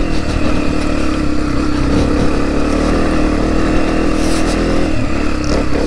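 Single-cylinder four-stroke engine of a 2020 Honda CRF250F dirt bike running at steady revs under load as it climbs a steep, rocky uphill trail.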